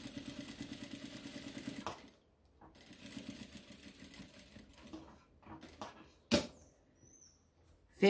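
Sun Special sewing machine stitching in two quick runs, a fast even patter of needle strokes, stopping briefly after about two seconds and again near six seconds, as an edge seam is sewn. A single sharp click follows.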